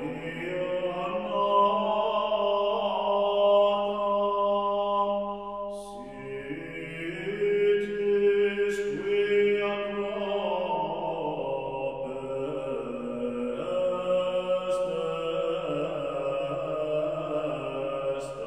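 Background music of slow chanting voices holding long notes that change pitch in steps.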